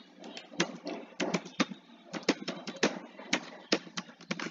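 Computer keyboard being typed on: irregular key clicks, about four a second, after a brief pause at the start.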